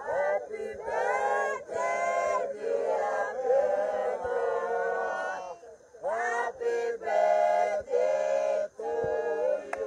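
Several voices singing together, men's voices to the fore, in long held phrases with a short break about six seconds in.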